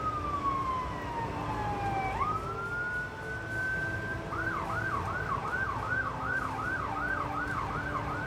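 Emergency vehicle siren in a slow wail, falling and then rising again, switching about halfway through to a fast yelp of about three sweeps a second, over a steady rushing noise.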